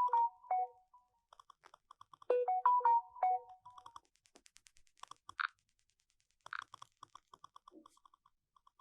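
Mobile phone notification tone: a short rising jingle of a few pure electronic notes plays twice, about two and a half seconds apart. Soft rapid clicks like on-screen keyboard taps run underneath, with a few brief single beeps later on.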